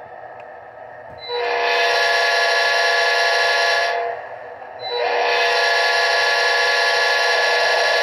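Sound decoder in an Athearn Genesis P42 HO-scale model locomotive playing a modern P5A air-horn sound through its small speaker: two long chord blasts, the first about three seconds long, the second starting just before the halfway point.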